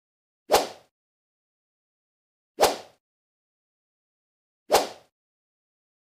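Three short, sharp sound-effect hits about two seconds apart, each dying away within a third of a second, with silence between them: the countdown effects of an animated video intro.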